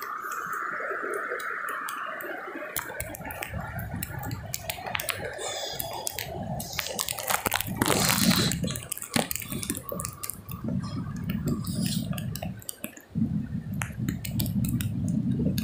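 Wind buffeting the microphone on an open beach, over the wash of surf, with many scattered sharp clicks and taps. The wind rumble sets in about three seconds in and drops out briefly near the end.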